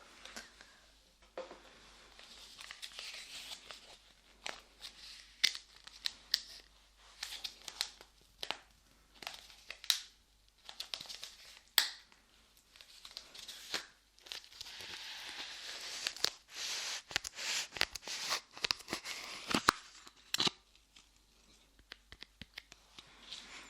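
Lightweight foam modelling clay pressed onto and peeled off microphone ears: sticky crackling and tearing with scattered sharp snaps.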